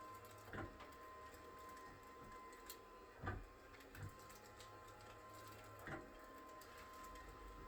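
Cox flexion-distraction table's moving section giving four soft, irregularly spaced knocks as it is worked, over a faint steady hum.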